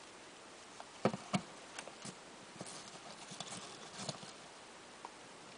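Hands handling a small plastic action figure: scattered light clicks and taps of plastic parts and fingers on the toy, with two sharper clicks about a second in.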